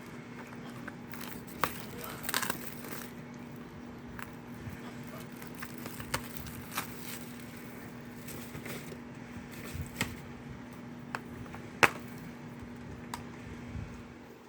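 A plastic Blu-ray case being opened and handled: scattered sharp clicks and a short burst of plastic crinkling about two seconds in, over a steady low hum.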